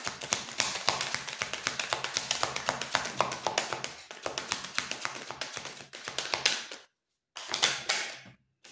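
Osho Zen tarot deck being shuffled by hand: a fast, dense run of card flicks and taps for about seven seconds, then after a short pause a brief second run.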